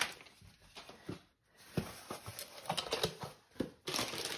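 Paper and craft items being handled and moved about on a tabletop: scattered light rustles, taps and clicks, busier near the end.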